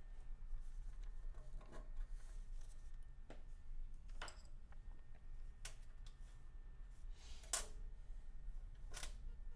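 Scattered light clicks, taps and scrapes of sheet-metal kit parts and screws being handled and fitted together, the sharpest click about three quarters of the way through, over a faint low hum.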